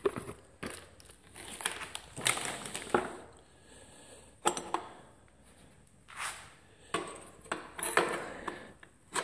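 Hands handling and fitting parts: irregular rustling and crinkling with short clacks and knocks, about a dozen separate bursts.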